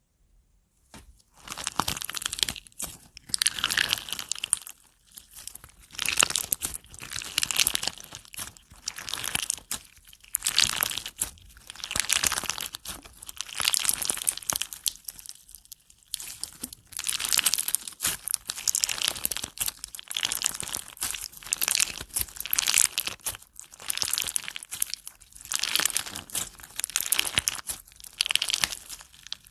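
Slime being squeezed, poked and stretched by hand, giving crunching, crackling sounds in repeated bursts of a second or two.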